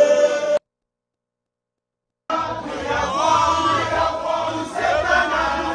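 A crowd of many voices chanting and singing together in a hall. The sound cuts out completely for under two seconds just after the start, then the chanting comes back.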